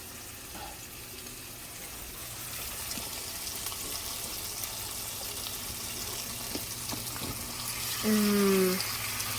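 Beef tips and onions sizzling in a frying pan: a steady hiss that grows a little louder a couple of seconds in, with a few faint clicks.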